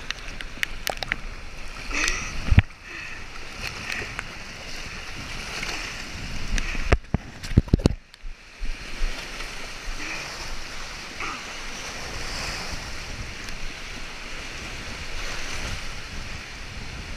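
Choppy lake water splashing and washing over wooden dock boards and rocks right at the camera, with wind on the microphone. A few sharp knocks stand out, one about two and a half seconds in and a cluster near the middle.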